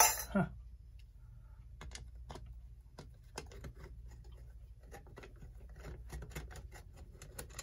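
Light, irregular metallic clicks and taps of a nut and screw being worked loose from the back plate of a 1930s Hammond electric clock.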